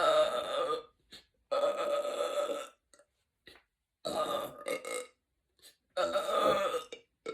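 A woman belching loudly four times in a row, each belch long and voiced, lasting about a second, with short pauses between; the first is already under way at the start.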